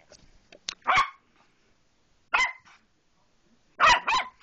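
A dog barking three times, short single barks about a second and a half apart.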